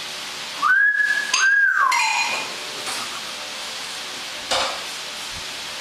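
Common hill myna giving two loud whistles about a second in, each rising, held briefly, then falling away, the second sliding lower. A few short clinking notes follow, and a short scratchy noise comes later, over a steady hiss.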